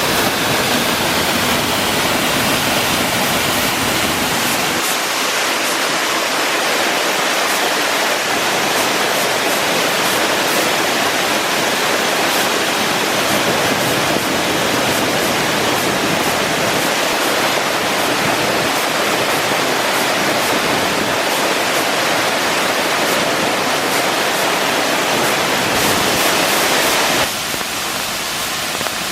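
A waterfall that only runs after rain is flowing, a steady loud rush of falling water. It drops a little in level near the end.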